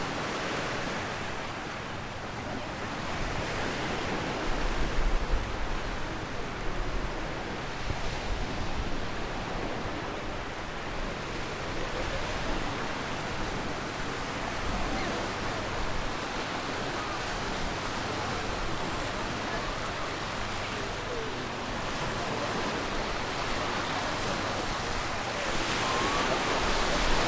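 Surf of the Adriatic Sea washing onto a sandy beach, a steady hiss of small waves, with a low rumble of wind on the microphone about five seconds in.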